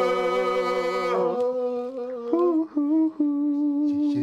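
Men's voices singing a held chord a cappella with a wavering vibrato, breaking off about a second in. After a few short sung notes, a single lower note is hummed and held for the last second or so.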